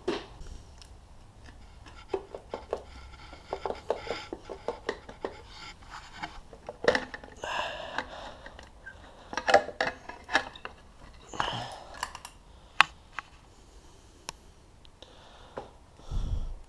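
Metal engine parts and hand tools clinking, tapping and scraping in irregular clicks while a Honda CRF250R engine is taken apart by hand, with a short low thud near the end.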